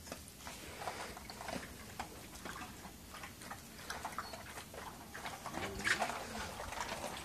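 Dogs moving about on a concrete floor: faint scattered clicks and scuffs of paws and claws, with a short whine a little past the middle.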